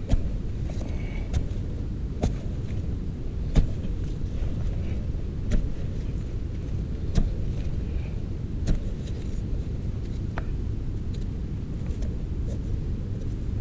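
A digging tool striking into the hard earth of a termite mound, with a sharp knock about every one and a half to two seconds over a steady low rumble.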